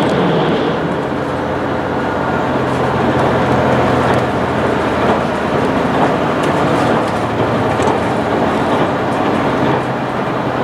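Cabin running noise of an HC85 series hybrid railcar at speed: a steady rumble of wheels on rail with a steady low hum underneath, heard from inside the carriage.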